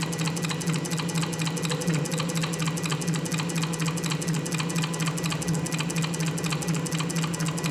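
A small machine running steadily: a low hum with fast, even ticking.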